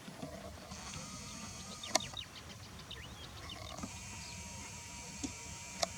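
Wetland birds calling: many short, high chirps and quick falling notes over a steady high hiss, with a sharp click about two seconds in.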